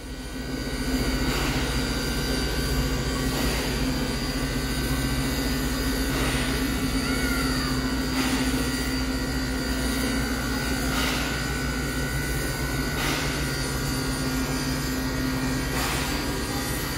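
Steam locomotive with a turntable under it: a steady low machine drone, with a short hissing puff about every two seconds.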